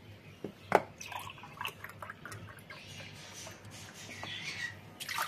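Milk poured from a drinking glass into a non-stick pot already holding milk, splashing and trickling, with a couple of sharp clicks early on. The splashing is strongest in the second half.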